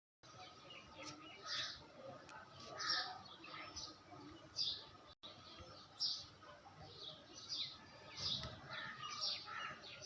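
Birds chirping, short high calls repeating roughly once a second.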